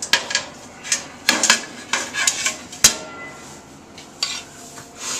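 Irregular metal clanks and clacks from the stainless grill and stove in a food truck kitchen, about a dozen knocks with the sharpest about three seconds in.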